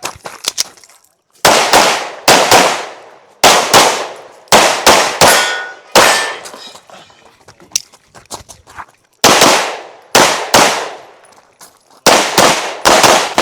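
Pistol shots fired in quick pairs on a practical shooting stage, about a second apart between pairs, with a lull of a few seconds in the middle while the shooter moves or reloads.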